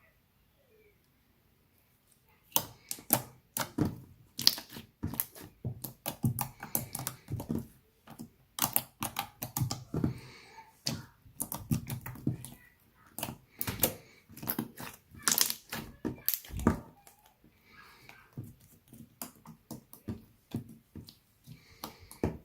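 Slightly overactivated cloud slime being squished and stretched by hand, giving irregular sticky clicks and pops. They come thick and fast from a couple of seconds in, then thin out to scattered clicks for the last few seconds.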